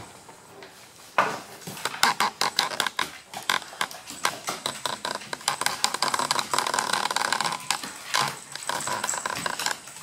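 Dogs play-fighting on a wooden floor: a rapid patter of claws and scuffling, with grunting play growls over much of the second half.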